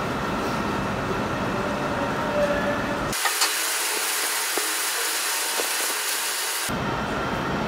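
Hand brush scrubbing a wet, detergent-covered blanket on a stone floor, a steady rasping noise. From about three seconds in until near the end the deep part of the sound drops out and it turns thinner and hissier, with a few small clicks.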